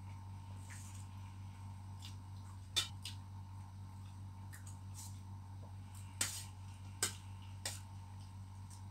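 A metal spoon clinking against a stainless steel bowl four times while eating: sharp single clicks a few seconds apart, over a steady low hum.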